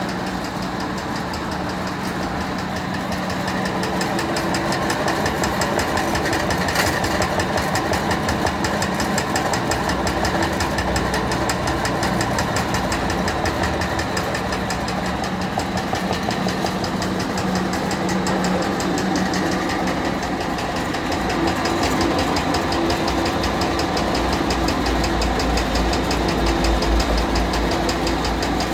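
Food-cutting machine running steadily, its motor humming under a fast, even mechanical rhythm.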